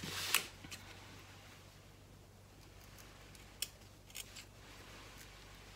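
Scissors snipping through foam interfacing: the loudest cuts come right at the start, then a few separate snips past the middle.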